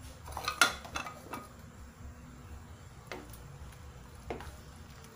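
A ladle knocking and clinking against the side of a stainless steel soup pot while stirring: a cluster of sharp knocks between about half a second and a second and a half in, then single knocks near three seconds and just after four.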